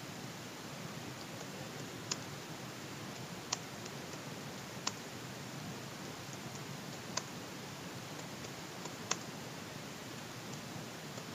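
Computer keyboard keys clicking irregularly as text is typed, a handful of keystrokes standing out sharply, over a steady background hiss.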